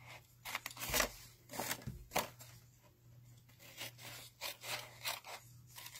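Small scissors snipping through patterned paper in a series of short cuts, with a pause of about a second and a half in the middle.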